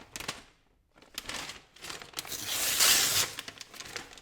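Plastic LEGO parts bag crinkling and tearing as it is opened, with rustling and clicks, loudest about three seconds in.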